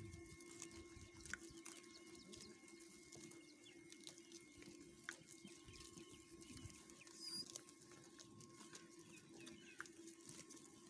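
Near silence: faint farmyard ambience with a steady low hum, scattered small clicks, and a brief high chirp about seven seconds in.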